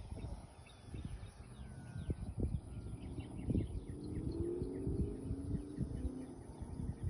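Outdoor ambience: wind buffeting the microphone, with small birds chirping throughout and a faint hum that swells about halfway through.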